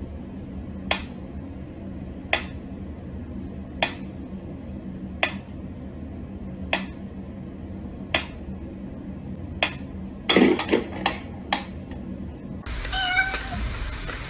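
Mechanical pendulum metronome ticking slowly, one sharp tick about every second and a half. Around two-thirds of the way in the ticking gives way to a quick run of louder knocks and clatter as a cat paws at the metronome, followed near the end by a brief meow-like cry.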